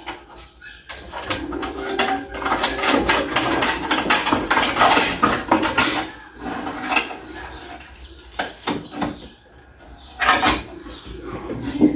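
Window glass and metal parts clicking and knocking inside a car's steel door shell as the glass is released and handled by hand, busiest in the first half, with scattered knocks after and a louder one near the end.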